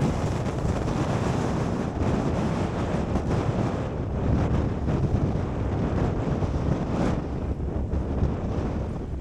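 Strong wind buffeting the microphone on a boat at sea, a dense steady rumble with the wash of waves underneath.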